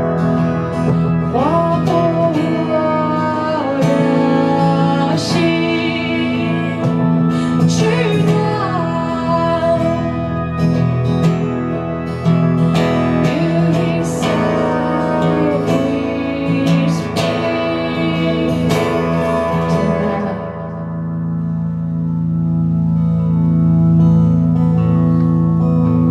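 Guitar-led music: strummed chords with a bending melody line over them. About twenty seconds in, the upper part drops away and low sustained chords ring on.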